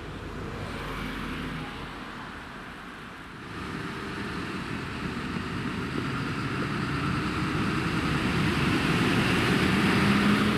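Road vehicle engine and tyre noise, growing steadily louder from a few seconds in as the vehicle approaches.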